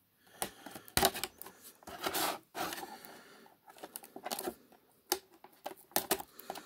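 Clear plastic packaging crackling and clicking in the hand as a knife cuts through the tape sealing it, in irregular sharp clicks with a quieter stretch near the middle.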